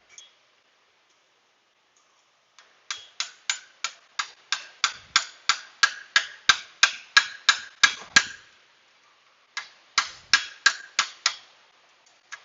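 Series of sharp, ringing metallic taps, about three a second, with a pause of about a second before they resume. It sounds like a hammer tapping on a 24 mm socket to drive a new transmission filter seal into its bore until it sits flush.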